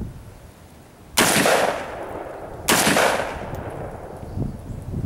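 Two gunshots about a second and a half apart, the first about a second in, each trailing off in a long echo.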